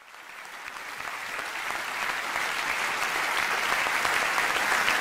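Studio audience applauding, a dense patter of many clapping hands that grows louder over the first couple of seconds and then holds steady.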